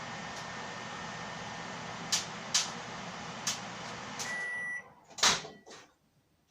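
Microwave oven running with a steady hum, with a few sharp pops from toothpaste heating inside. About four seconds in, the timer beeps once and the hum stops. Then the door is opened with a loud clack.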